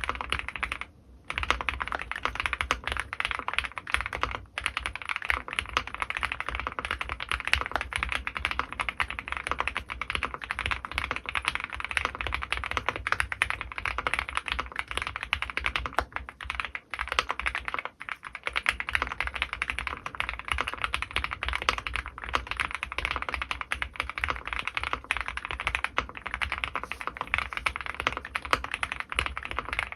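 Steady fast typing on a custom mechanical keyboard with lubed Gateron Ink Black V2 linear switches and GMK doubleshot ABS keycaps: a dense, continuous run of keystroke clacks, with brief pauses about a second in, around four and a half seconds in and near the middle.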